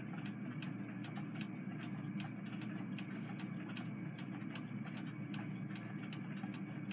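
Quiet room tone: a steady low hum with faint, irregularly spaced light clicks.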